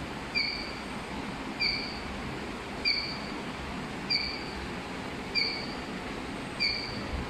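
Short electronic beep repeating evenly about every second and a quarter, six times, over a steady low machine hum and hiss.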